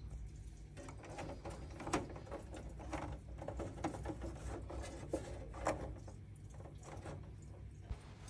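Faint rustling and small clicks of fingers handling electrical cables by a terminal block, over a low steady hum.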